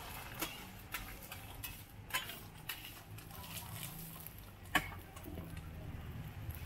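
Market background noise: scattered light clinks and knocks of kitchenware over a low steady hum, with one sharper knock near the end.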